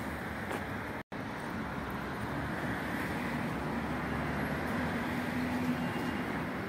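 Steady background road traffic noise, with a short dropout to silence about a second in.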